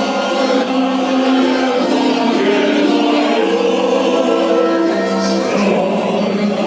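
A choir singing in long held notes, the pitch stepping from one note to the next.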